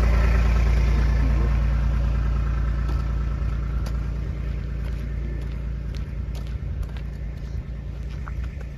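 A vehicle engine idling steadily, growing gradually fainter, with scattered light footsteps on dry ground from about three seconds in.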